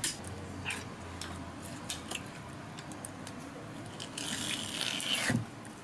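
Nagoya-style eel knife splitting an eel on a wooden cutting board: light taps and clicks of the blade and fish against the board, then about four seconds in a louder scraping hiss of the blade running along the eel for just over a second.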